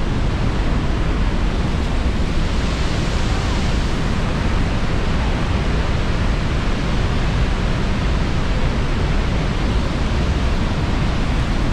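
Steady roar of Niagara's Horseshoe Falls close up, a dense, unbroken rushing noise that is heaviest in the deep end, mixed with wind and spray buffeting the microphone.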